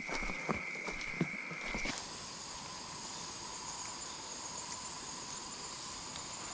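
A steady, high-pitched chorus of insects, with light crackles and ticks in the first two seconds. About two seconds in, the chorus changes abruptly to a higher-pitched set of steady tones.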